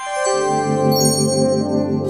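Music: a held chord comes in suddenly and loudly, and high bell-like notes join about a second in.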